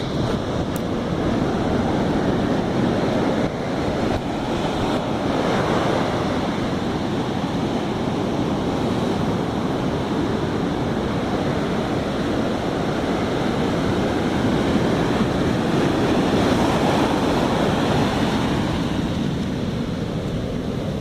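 Sea surf washing in, with wind blowing on the microphone; the rush swells louder twice, about a quarter of the way in and again past the three-quarter mark.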